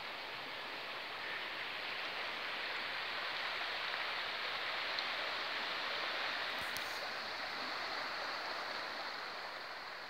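A river in spate, a steady rushing of fast, high water.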